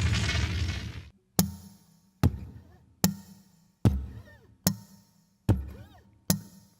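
A dense burst of intro music fades out in the first second. Then a steady beat of seven sharp percussive knocks follows, about one every 0.8 seconds, each with a low thud that dies away quickly, setting the tempo of an acoustic country song.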